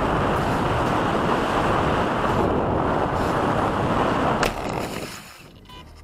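Air rushing over an RC glider's onboard camera, a loud steady wind roar on the microphone with no motor tone. About four and a half seconds in there is a sharp knock, and the rushing then dies away.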